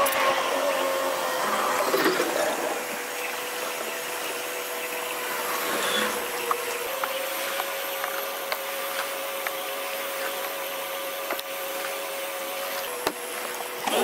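Electric trolling motor on a bass boat running with a steady whine, stepping up slightly in pitch about seven seconds in, with a few light clicks.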